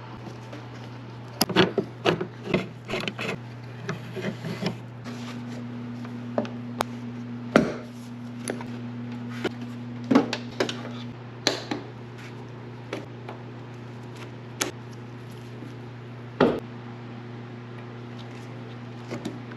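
Irregular clicks, knocks and rubbing as hands and tools work on a station wagon's tailgate during disassembly, over a steady low hum. The clicks come thickest in the first few seconds and then more sparsely.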